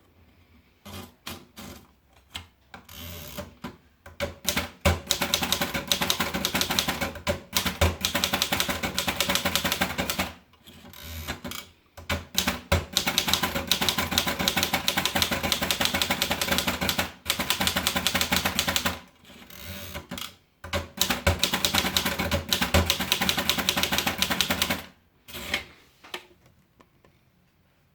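Erika Model 5 portable manual typewriter being typed on. A few slow key strikes at the start give way to long, rapid runs of strikes broken by brief pauses, and the typing ends with a few scattered strikes near the end.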